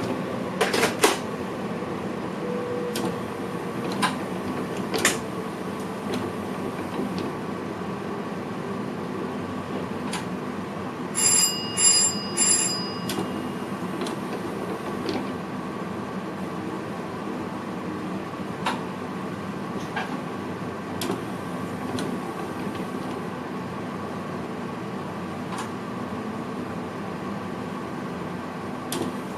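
Steady hum inside the cab of an NS VIRM double-deck electric train, with scattered sharp clicks. About eleven seconds in come four quick electronic beeps.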